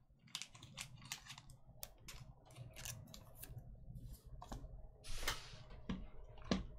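Off-camera handling noise: an irregular run of small clicks and taps, with a short rustle about five seconds in.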